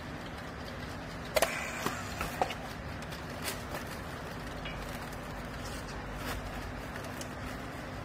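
Steady low hum of the baler machinery, with a few sharp clicks and clacks about one and a half to two and a half seconds in as plastic strapping and a handheld battery strapping tool are handled on the bale.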